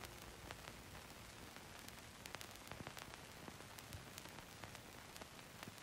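Near silence: a faint steady hiss with scattered soft ticks.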